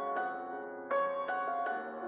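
Soft background music: a slow keyboard melody of held notes, with a new note or chord every half second or so.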